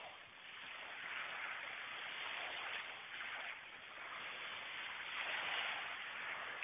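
Small waves washing in on a pebble beach: a steady hiss that swells and eases every two or three seconds.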